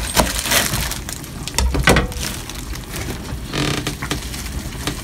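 Kitchen knife cutting through a wedge of napa cabbage on a plastic cutting board, a few separate crunching cuts as the blade goes through the crisp leaves.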